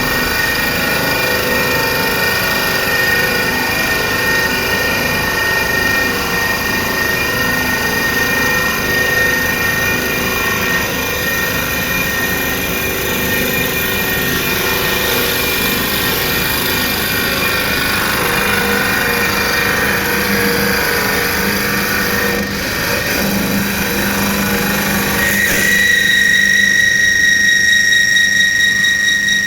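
CNC turning lathe running and machining, a loud steady mechanical noise with several high whining tones. About 26 s in, the lower noise drops away and one high whine with overtones takes over.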